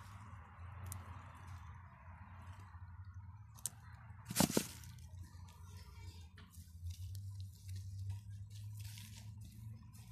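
Gloved hand digging and rummaging through loose potting soil in a plastic planter while harvesting potatoes: soft rustling and scraping with a few light clicks, over a low steady hum. A single sharp knock about four and a half seconds in is the loudest sound.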